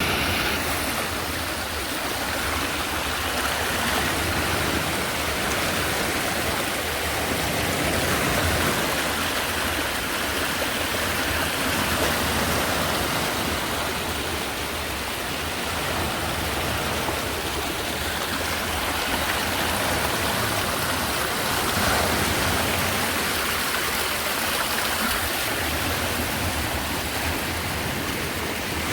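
Sea waves washing onto the shore: a continuous rushing wash that swells and eases every few seconds.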